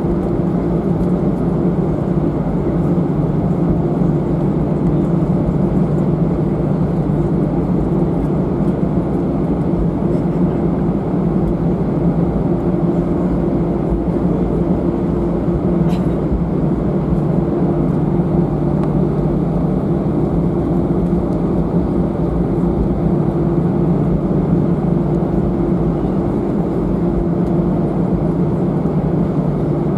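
Steady cabin noise of an Airbus A319-111 in flight: an even drone of its CFM56 engines and rushing air, with a constant low hum. There is a faint click about halfway through.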